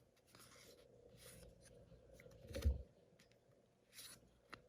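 Quiet rustling and sliding of baseball cards being flipped through by hand, in several short strokes, with one dull thump about two and a half seconds in and a small click near the end.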